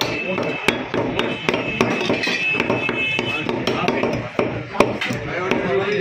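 Heavy meat cleaver chopping boneless mutton on a wooden log chopping block: a run of sharp, irregularly spaced knocks.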